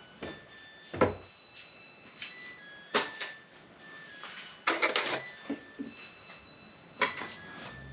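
Soft background music with a few sharp knocks and clatters: one about a second in, one about three seconds in, a quick cluster around five seconds, and one near the end.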